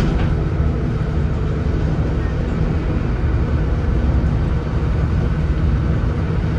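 Leyland Atlantean AN68/1R bus's Leyland O.680 six-cylinder diesel engine running steadily, a low, even drone.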